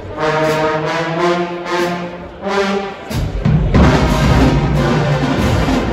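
Brass band playing: held brass chords for about three seconds, then drums and low brass come in loudly.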